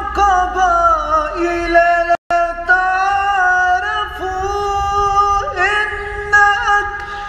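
A man's solo voice reciting the Quran in tartil style, holding long notes with wavering ornamental turns. The sound drops out for an instant about two seconds in.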